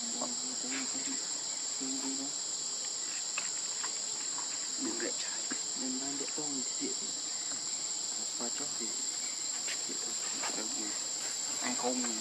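Steady high-pitched drone of insects chirring without a break, with a few faint short low sounds now and then.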